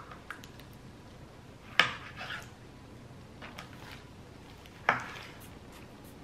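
Kitchen knife cutting through fresh figs and knocking on a plastic cutting board: two sharp knocks, about two seconds in and near the end, with a few fainter taps between.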